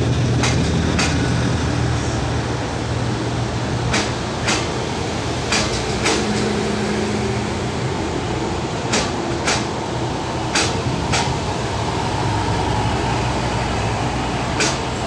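PNR PT INKA 8100-series diesel-hydraulic multiple unit idling at the platform with a steady low hum. Sharp clicks come in pairs about half a second apart, roughly six times.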